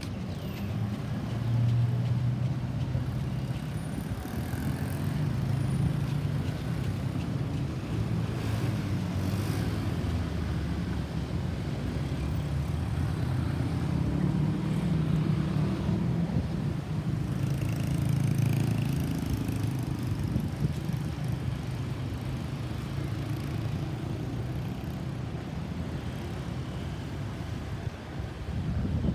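Low rumble of road vehicles and traffic, swelling and easing slowly, with no siren sounding.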